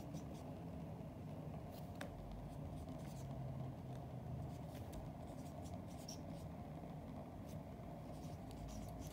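Dry-erase marker writing numbers on a whiteboard: a string of short, scattered strokes and taps of the marker tip, over a low steady room hum.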